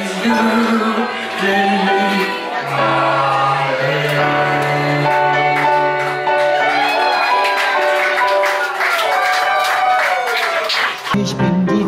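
A woman singing a cabaret number into a microphone with piano accompaniment, her voice wavering on long held notes. About eleven seconds in, the music breaks off and a different song begins.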